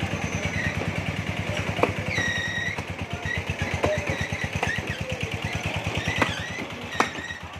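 Meat cleaver chopping beef on a wooden butcher's block: about half a dozen sharp chops a second or so apart, over a steady low engine-like throb.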